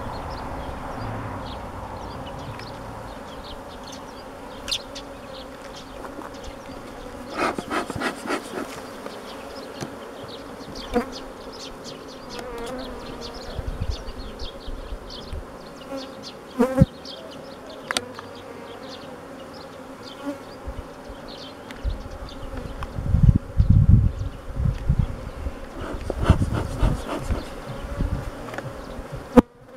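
Honeybees buzzing steadily from an open hive, with wooden knocks and scrapes as frames are pried loose and lifted. There are bursts of low rumble in the last third.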